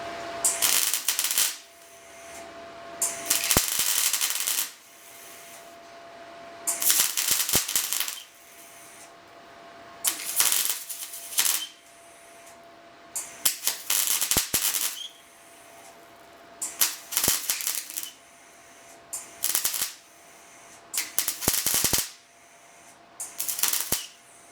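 MIG welder laying short tack welds to fill holes in car body sheet metal: about nine crackling bursts, each a second or so long, with short pauses between.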